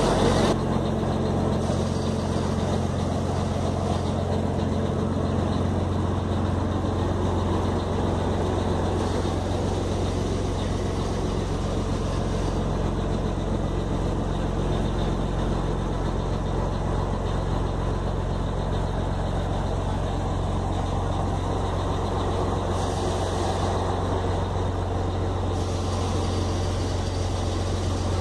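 Scania 111 truck's diesel engine, fitted with Scania 113 mechanicals, idling steadily.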